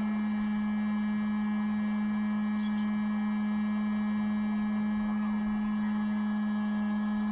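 Small DC motor of a homemade hot-air SMD desoldering heater running with a steady hum. A brief high click comes just after the start.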